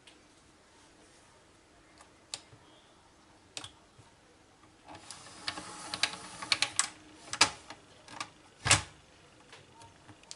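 Handling noise from small parts and tools: a few isolated clicks, then a few seconds of rustling and clicking with one loud knock near the end.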